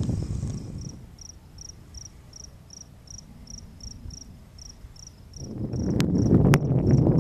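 A cricket chirping steadily, about three short high chirps a second. About five seconds in, a low rushing noise swells up and becomes the loudest sound, with two sharp clicks in it.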